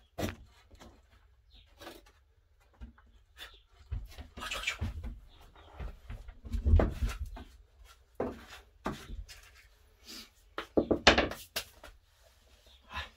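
Irregular knocks, rubs and clatter of things being handled around a wooden shelf, loudest about seven seconds in and again about eleven seconds in.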